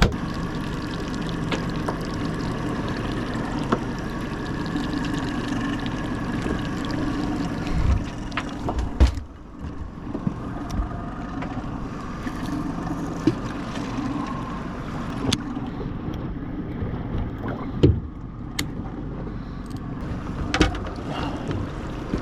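Boat engine running steadily at a constant pitch, with a few short sharp knocks scattered through it.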